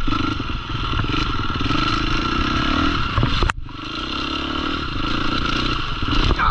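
Off-road dirt bike engine running under throttle as the bike is ridden, heard close from a rider-mounted camera. A sharp click and a brief dip in the sound come a little past halfway, and clattering comes near the end.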